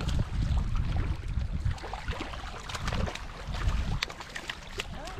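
Outdoor wind buffeting the microphone in uneven gusts, with scattered light clicks and ticks throughout.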